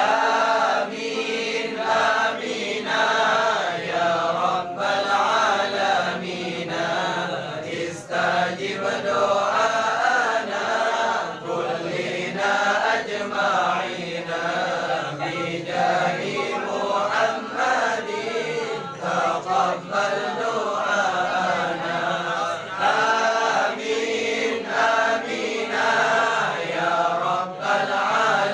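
A group of men chanting sholawat together in unison, a continuous devotional song in praise of the Prophet.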